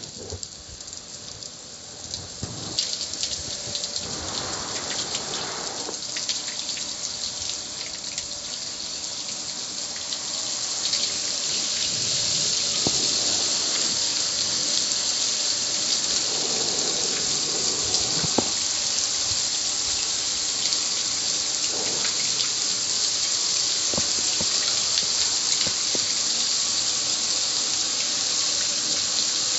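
Spray from a garden hose hissing and splattering on the metal lid and panel of a gas grill. The hiss grows louder over the first ten seconds or so, then holds steady.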